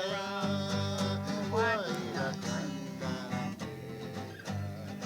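Acoustic guitar strumming chords in a steady rhythm, with a brief voice about one and a half seconds in.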